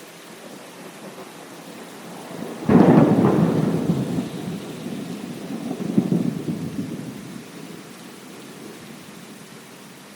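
Steady rain with a sudden clap of thunder about three seconds in that rolls on as a rumble, swells again a few seconds later, then dies away, leaving the rain.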